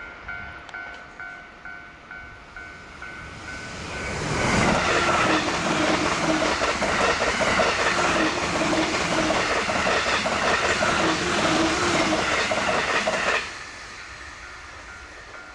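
A Japanese level-crossing warning bell rings in a steady two-tone pulse about twice a second. About four seconds in, a high-speed Joban Line electric train comes through the crossing, its wheels clacking rapidly over the rail joints. The passing noise cuts off suddenly near the end, leaving the crossing bell ringing again.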